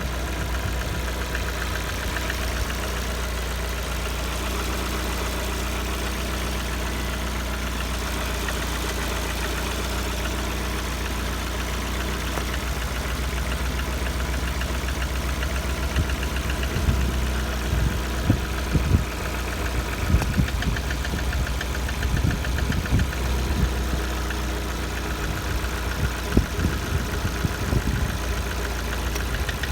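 Lada Kalina 1.4 four-cylinder engine idling with a knock, warmed to about 70 °C; the owner wonders whether it already needs a major overhaul. Irregular low thuds rise over the steady running in the second half.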